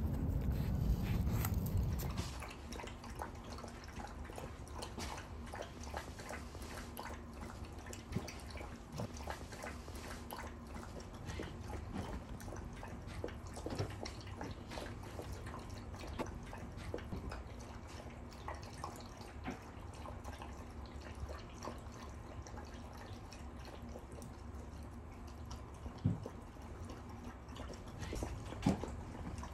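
Wind rumbles on the microphone for about the first two seconds. After that come two Shiba Inus lapping water together from one bowl: a fast, uneven patter of small wet clicks, with a couple of louder knocks near the end.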